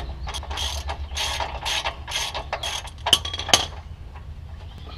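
Socket ratchet clicking in quick, even strokes, about three a second, as it backs out the lower shock mount bolt. Two sharp metallic clinks follow about three seconds in, and then the clicking stops.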